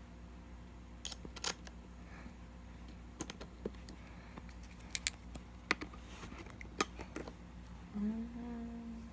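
Scattered light clicks and taps of small skateboard wheel parts (bearings, spacers, wheel) being handled and fitted by hand, followed near the end by a short low hum that rises slightly in pitch at its start.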